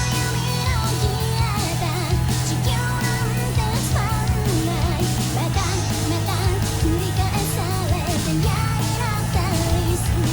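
Background pop song with a female-sounding sung vocal over guitar, bass and drums, at a steady full level.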